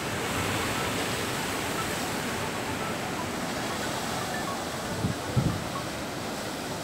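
Steady rushing noise of ocean surf, with a couple of brief low thumps about five seconds in.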